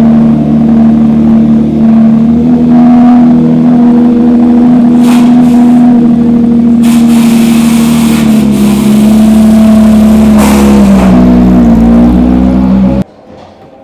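Porsche 911 race car's flat-six engine running loud at steady revs, with the pitch dropping about eleven seconds in. The sound cuts off abruptly about a second before the end.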